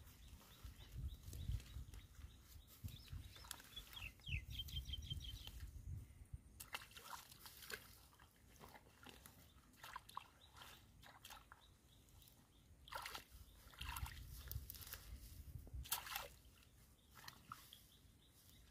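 Faint rustling and crackling of wet straw being pulled apart by hand, with sloshing and splashing in shallow muddy water. A brief run of high chirps comes about four seconds in.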